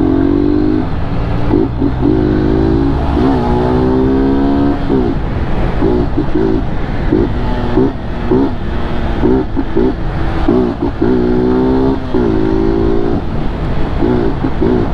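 Single-cylinder BMW G 310 GS motorcycle engine through an open aftermarket 'mangote invertido' exhaust, revved up and down over and over: a few longer rising-and-falling runs and many short throttle blips in quick succession.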